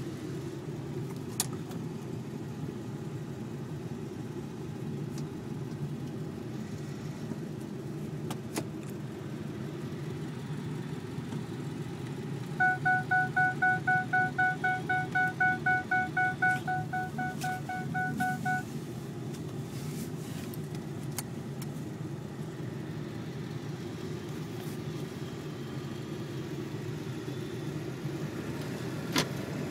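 Ford 7.3 L Powerstroke V8 turbo-diesel running under way, a steady rumble heard from inside the cab. Midway through, a rapid series of electronic beeps sounds for about six seconds, about three a second, fading toward the end.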